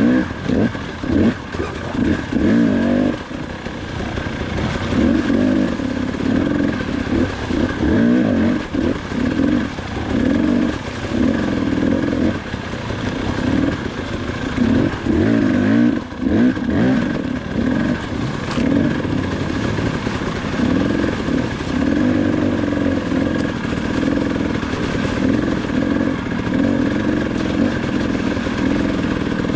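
KTM 300 XC-W two-stroke enduro engine under on-off throttle, revving up and dropping back every second or two as the bike is ridden through a rocky creek bed.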